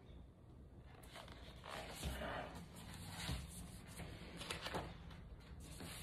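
Paper pages of a large hardcover picture book rustling and sliding as they are turned and smoothed flat, with a few light knocks as the book is handled on a wooden table.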